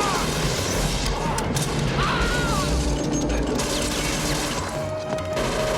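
Film action sound effects: continuous crashing and clattering with a few short squeals early on, under a music score that holds steady tones in the second half.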